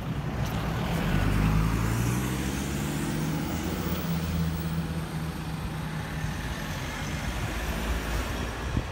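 Piper PA-44-180 Seminole flying overhead: the low, steady drone of its two piston engines and propellers, swelling to its loudest about a second and a half in and then carrying on with a slightly lower pitch.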